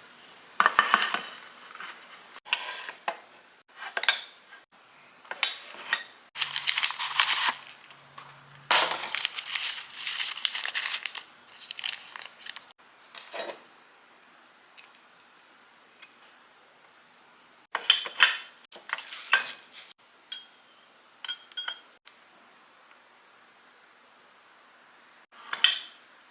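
Dishes and cutlery clinking and knocking in short separate bouts as breakfast food is plated onto a small tray, busiest for several seconds in the middle.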